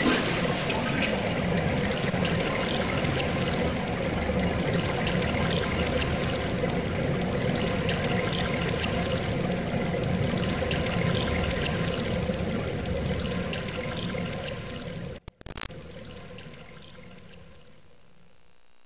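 Water-draining sound effect: a steady rushing, swirling gush like water going down a plughole. It fades after about thirteen seconds, cuts out briefly, then trails off quietly.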